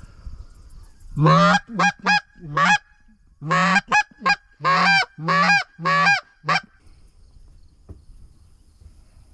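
A hand-blown goose call sounding loud honks and clucks to draw flying geese in. There is a quick run of four notes, a brief pause, then seven more, ending about two-thirds of the way through.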